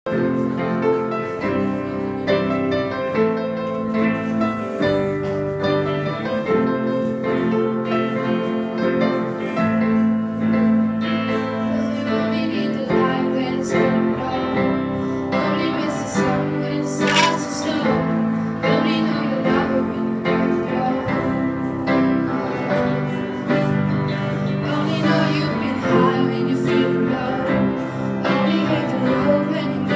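Live song: teenage girls singing into microphones, with electric guitar accompaniment.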